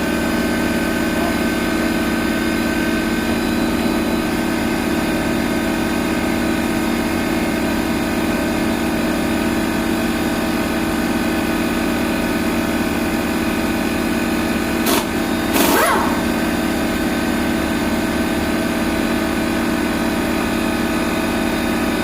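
Portable generator's small engine running steadily at constant speed, with a brief clatter of knocks about fifteen seconds in.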